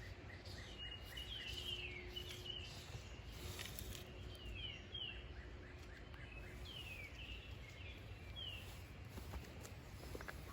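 Songbirds calling in short, falling chirps, a few every second or two, over a low steady rumble.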